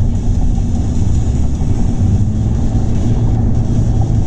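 Steady low rumble and hum of a car's tyres rolling over a grooved concrete bridge deck, heard from inside the cabin.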